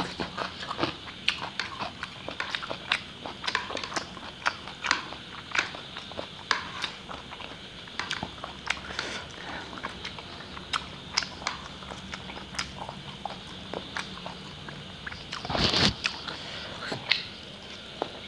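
A person chewing and eating instant noodles with wet mouth clicks and smacks, about two or three a second, picked up close by a clip-on microphone. There is one longer, louder slurp of noodles near the end.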